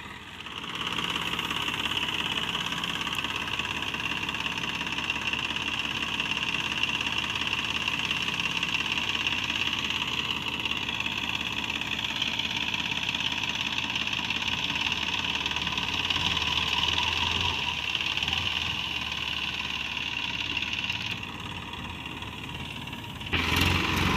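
Tractor-mounted harvester running steadily under load: the Massey Ferguson 7250 DI tractor's diesel engine driving the threshing drum and blower, with a constant high whir over the engine. It drops a little quieter for a couple of seconds near the end, then comes back louder.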